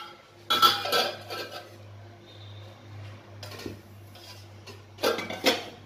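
Metal cookware clanking: an iron kadhai and steel ladle on a gas stove, with a sharp clatter about half a second in and again near the end, and a low steady hum between.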